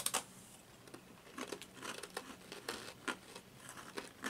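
Crisp edamame senbei rice crackers being bitten and chewed: a quick cluster of crunches at the first bite, then scattered, irregular crunches of chewing.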